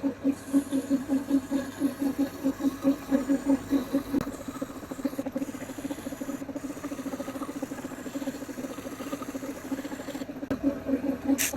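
Metal lathe running, a steady hum pulsing about four to five times a second, softer and quicker after the first few seconds, with a short hiss near the end.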